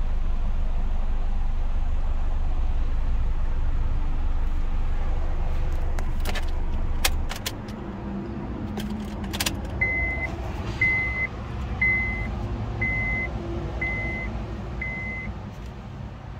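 A 2004 Honda CR-V's 2.4-litre four-cylinder engine idling, then switched off about seven seconds in, with a few sharp clicks from the ignition key. Then a high electronic chime beeps six times, about once a second.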